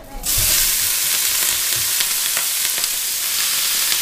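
Wet mixed greens (kale, chard and leeks) dropping into a smoking-hot pan of olive oil, setting off a loud sizzle that starts suddenly just after the start and keeps going steadily, with small crackles. The water left on the washed greens is what is spitting in the hot oil.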